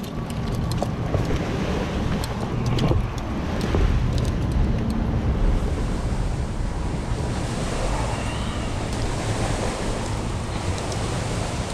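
Wind buffeting the microphone with a low, steady rumble. Scattered short crackles and snaps of brush and twigs come in the first few seconds as the walkers push through undergrowth.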